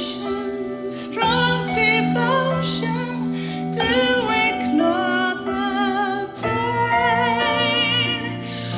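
A woman singing a ballad live with band accompaniment, holding long notes with vibrato, in a fan's concert recording.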